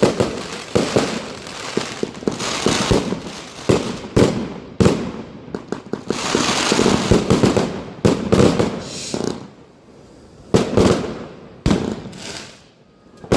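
Pyrocentury Feuer Frei, a 288-shot 25 mm compound firework cake, firing a fast string of shots with bursts of dense crackling. In the later seconds the bangs are sharper and spaced further apart.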